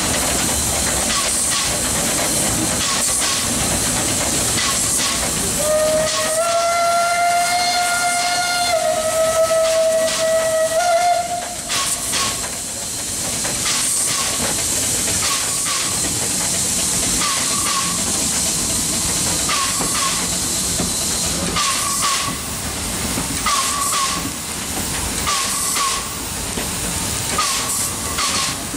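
Small steam locomotive running with a steady hiss of steam, its steam whistle blown in one long blast of about five seconds, about a fifth of the way in, that dips slightly in pitch before cutting off. Short high chirps and clicks from the running gear recur about once a second.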